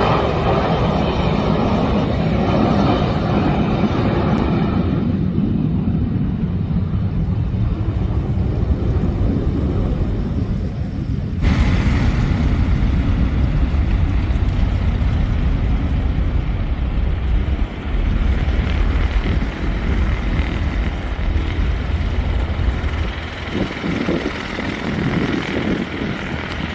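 Twin-engine regional jet's turbofan engines running at takeoff power through the takeoff roll and departure, a loud steady engine noise with a faint whine on top. The sound changes abruptly about eleven seconds in, where it cuts to another takeoff.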